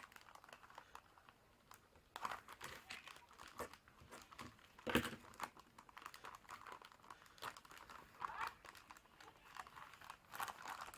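Packaging crinkling and rustling as it is handled and opened, in irregular crackles, with sharper crackles about two seconds and five seconds in.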